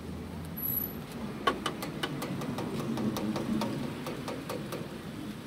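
Hands patting corn masa into a small tortilla: a quick, even run of slaps, about six a second, starting about a second and a half in and stopping near the end, over a low street rumble.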